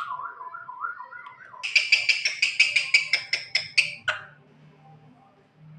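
Javan myna calling: a warbling, whistle-like phrase, then a rapid run of harsh, sharp notes, about five a second for two seconds, ending in a louder note.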